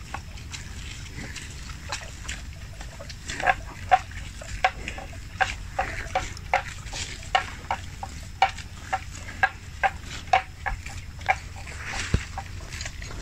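Water buffalo grazing close by, tearing and chewing grass in crisp crunches about twice a second. The crunches grow louder a few seconds in and keep an even rhythm.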